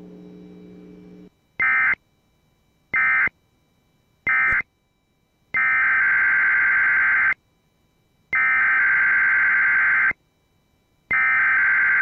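Emergency Alert System digital SAME data bursts: three short end-of-message bursts about a second apart, then three longer header bursts of about two seconds each, which open the next alert. A low steady hum stops about a second in, before the first burst.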